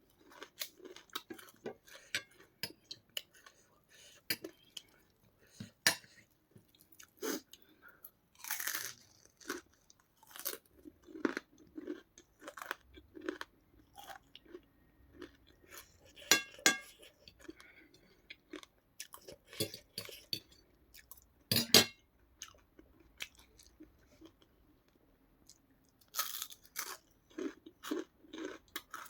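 A person chewing and crunching crisp papad: irregular crackly crunches with a few louder bites between quieter chewing.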